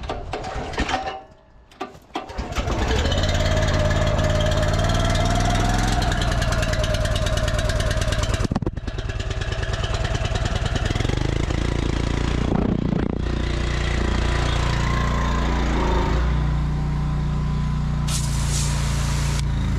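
Petrol engine of a V-TUF pressure washer starting up about two and a half seconds in, then running steadily with two brief dips near the middle.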